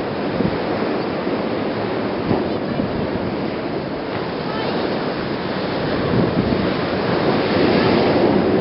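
Wind buffeting the microphone over the steady wash of rough sea and surf.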